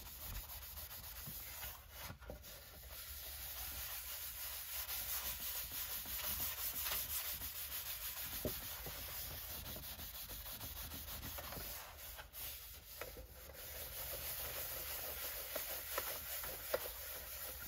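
Fine Scotch-Brite pad rubbed back and forth over an aluminium rudder skin: a quiet, steady scratchy scrubbing with brief breaks about two and twelve seconds in. The metal's polish is being scuffed off to leave an even surface for primer and paint.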